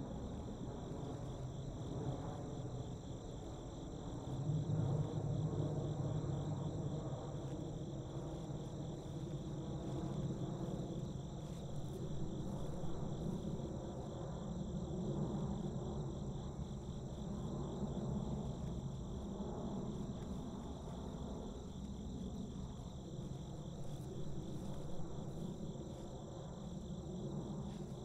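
Night chorus of crickets chirping steadily in a high trill, over a low rumble that swells about five seconds in.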